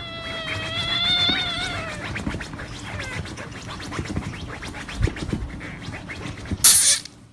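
A pet's long, wavering, high whining call for about two seconds, then scattered knocks and scuffles. Near the end comes a short, loud hiss-like burst of noise.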